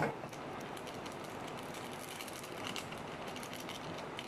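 A knock right at the start, then a run of short crinkles and crackles as a small plastic seasoning sachet is handled and torn open, over a steady background hiss.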